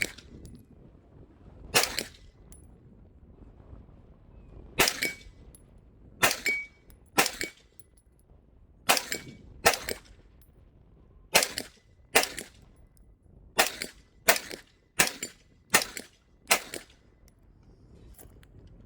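Gunshots fired one at a time in a steady string, about thirteen in all, spaced roughly a second apart and quickening in the second half.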